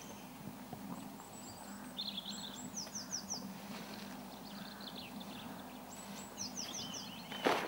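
A small songbird singing in two short bursts of quick, high, falling notes over a low steady hum, with one sharp knock near the end.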